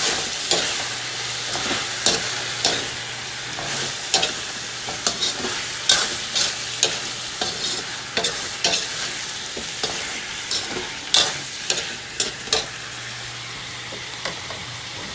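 Vegetables sizzling in a metal wok while a metal spatula stirs and scrapes them, with irregular clinks and scrapes of metal on metal over a steady frying hiss.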